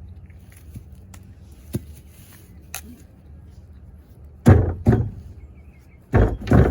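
Chopping at the soft trunk of a dead papaya tree: a few light knocks, then four heavy thuds in two pairs in the second half.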